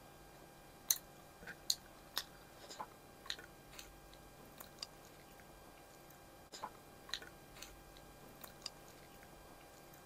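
People chewing food close to the microphone: soft, irregular mouth clicks and smacks, about fifteen over the stretch.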